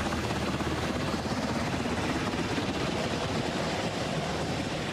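Fire department rescue helicopter hovering, its rotor chop steady and unbroken.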